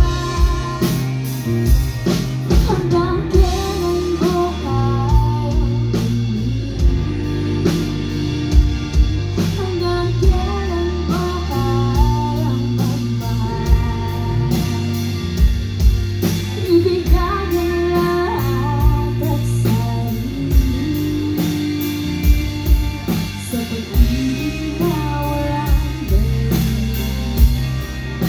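Live rock band playing a song: singing over guitar, bass and drums with a steady beat.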